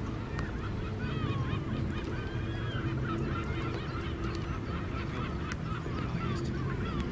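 A flock of geese honking, many short calls overlapping throughout, over a steady low rumble.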